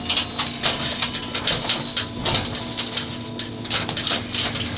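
Irregular rustling and light clicks of small items being handled and rummaged through.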